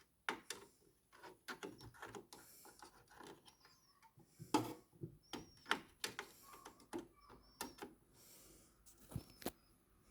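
Irregular clicks, taps and knocks of hands handling computer parts during a RAM upgrade, with a few faint short high squeaks.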